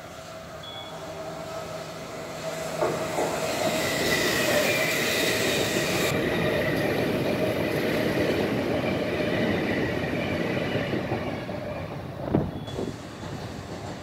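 Kintetsu 9000-series and 1000-series electric multiple unit passing through a station without stopping. The wheel and rail noise builds as it comes in, with a steady high tone over the rumble, then fades as it draws away. There is a sharp clank about twelve seconds in.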